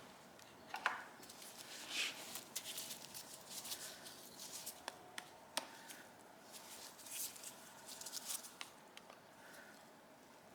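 Scattered light clicks, taps and short scrapes of hand tools and small metal parts being handled while a motorcycle carburettor is taken apart.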